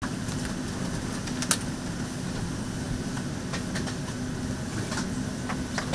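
Steady hum inside an airliner cabin, with scattered clicks and knocks from passengers handling bags and overhead bins; the sharpest comes about a second and a half in.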